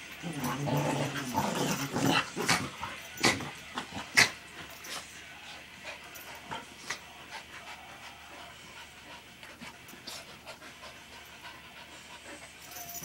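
Two puppies play-fighting: a low, drawn-out dog growl in the first two seconds, then a few sharp knocks, the loudest about four seconds in, followed by quieter panting and scuffling as they tussle over a cloth toy.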